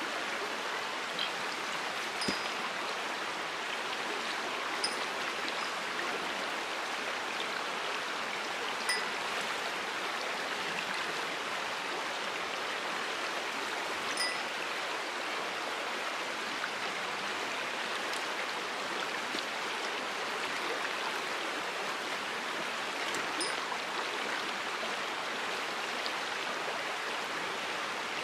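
Small stream running over a stony bed: a steady, even rush of water. A few faint, short high notes are heard now and then.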